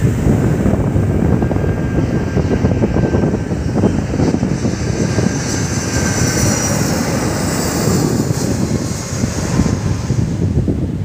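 Airliner flying low overhead on its landing approach. Its engine noise carries a high whine that is strongest about halfway through, over a steady wind rumble on the microphone.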